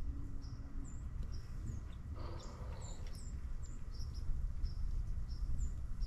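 Small songbirds chirping around backyard bird feeders: a run of short, high call notes, about two a second, some of them quick hooked chips. A steady low rumble runs underneath.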